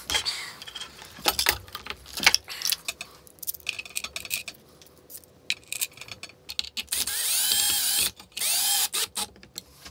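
Cordless drill-driver running in two bursts of about a second each near the end, its motor pitch rising and falling with the trigger as it drives screws into the acetal plates of the CNC gantry. Before that, scattered clicks and knocks of parts and screws being handled.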